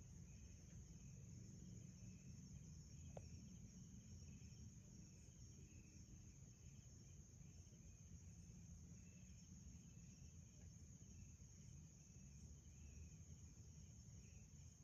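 Near silence of a night outdoors: faint insects keep up a steady high trill with softer pulsing chirps, over a low rumble. A single brief click comes about three seconds in.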